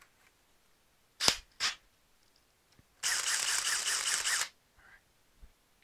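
Cordless drill: two sharp clicks, then the motor spins freely with no load for about a second and a half, a steady whine that stops abruptly. It is a test run on a freshly fitted battery.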